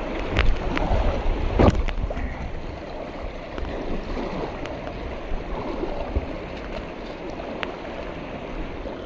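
Kayak paddle strokes on moving river water: the blades dipping and splashing over a steady rush of current, with sharp splash and drip clicks, the loudest about a second and a half in.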